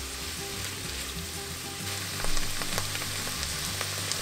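Diced onion, bell peppers, garlic and serrano chile sizzling in hot bacon and sausage fat in a frying pan, stirred with a wooden spoon. The sizzle grows a little louder about two seconds in.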